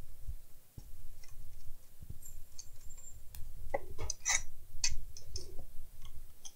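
Scattered small clicks and knocks from a metal HP PC power supply case and its fan being handled on a workbench. They come thickest about four to five seconds in, over a low handling rumble.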